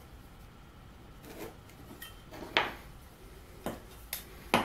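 Metal combination square being handled on plywood: a handful of sharp clinks and taps, starting about a second in, as the steel rule and head knock against the wood. The loudest come about halfway through and right at the end.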